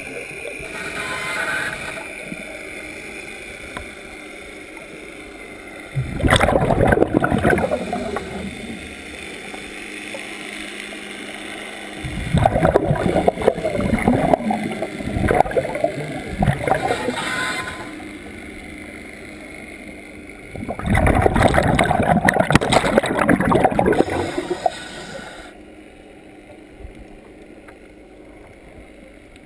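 Scuba regulator breathing heard underwater: three long bursts of exhaled bubbles, a few seconds each, with quieter gurgling between breaths.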